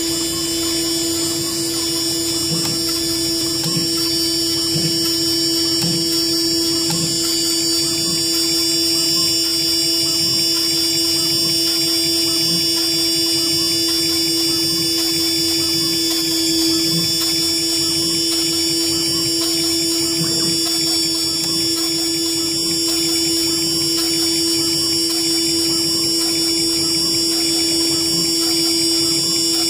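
CNC router spindle running at speed with a steady high whine while its small bit drills a copper-clad circuit board. A soft low pulse repeats a little more than once a second as the bit works hole after hole.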